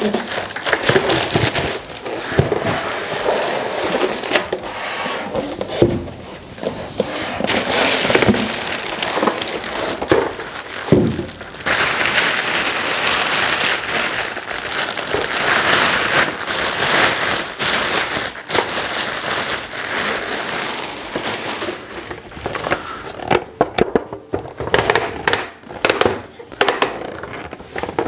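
Styrofoam packing blocks rubbing, knocking and squeaking as they are pulled apart, then a large plastic bag crinkling and rustling in long spells from about halfway as a big plastic collectible figure is worked out of it.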